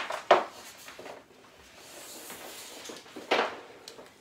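Handling and movement noises: a sharp knock near the start, faint rustling, and another knock about three seconds in.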